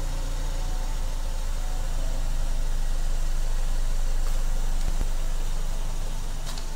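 Ford Escape engine idling steadily just after being started by a remote starter. There are a few short clicks near the end.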